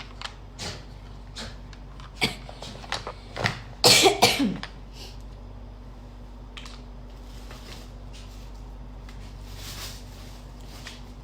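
A person coughs once, loudly, about four seconds in, after a few small scattered clicks and knocks. A steady low electrical hum runs underneath.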